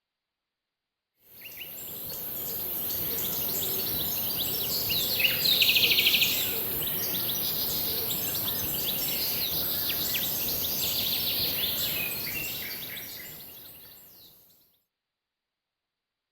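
Outdoor ambience picked up by a trail camera: several birds chirping, with one loud fast trill about five seconds in, over a steady high hiss. The sound starts about a second in and fades out near the end.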